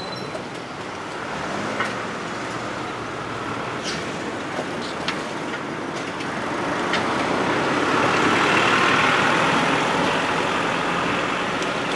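A vehicle passing: a steady rumble that swells to its loudest about two-thirds of the way through and then eases off, with a few scattered clicks.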